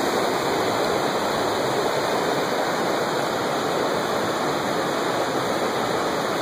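Conasauga River water rushing steadily over rocks and shallow riffles.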